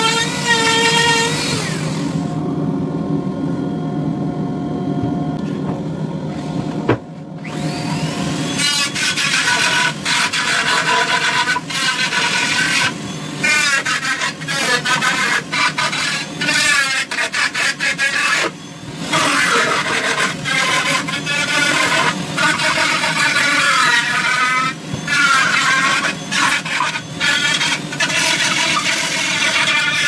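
Dremel rotary tool on a flex shaft with a Kutzall carving burr, grinding into wood. Its whine wavers up and down in pitch as the burr bites and eases, with several brief breaks.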